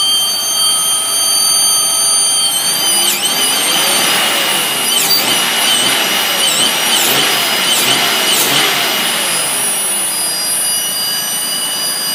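GM 3400 V6 engine running with a loud, high-pitched whining noise from the right side of the engine. Between about three and nine seconds in, the whine dips in pitch and recovers several times while a louder rushing noise joins it. The owner suspects a loose exhaust pipe; the belt and pulleys have been checked and found fine.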